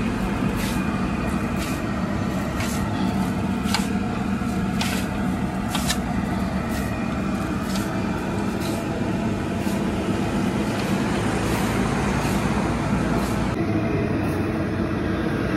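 Steady roadside traffic drone, with scattered light clicks and taps as a big heap of poha is tossed and mixed by hand in a large aluminium tray.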